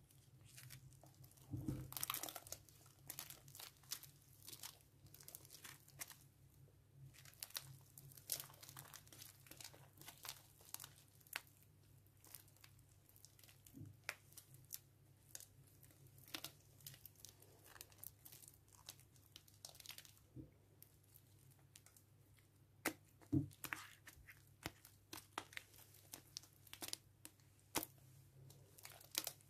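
Grainy green slime, made from powder and water, being kneaded, squeezed and stretched by hand: a run of irregular small, sticky crackles and pops. It is loudest about two seconds in and again around twenty-three seconds. A faint steady low hum lies beneath.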